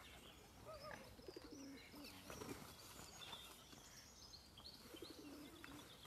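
Faint bird calls: scattered short high chirps and a few short low notes, over a quiet background.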